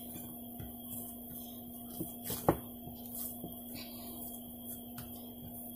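A hand kneading crumbly chhena dough in a bowl: soft rubbing with light knocks of hand against bowl, and one sharp click about two and a half seconds in, over a steady background hum.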